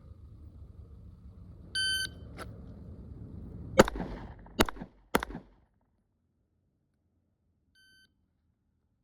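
A shot timer's start beep, then three pistol shots less than a second apart. A faint second beep sounds near the end.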